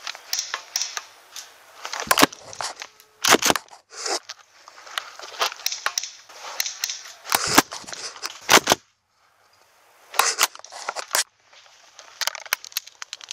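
Airsoft guns firing: sharp cracks in scattered single and quick double shots, with rustling and scraping of gear between them.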